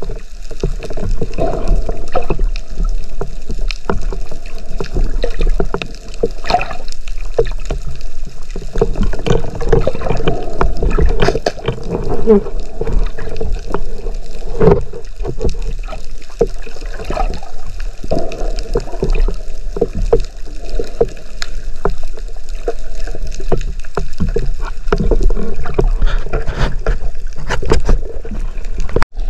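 Underwater ambience picked up through a camera housing mounted on a speargun: a steady rush of water with many scattered crackling clicks. It cuts out abruptly for an instant near the end.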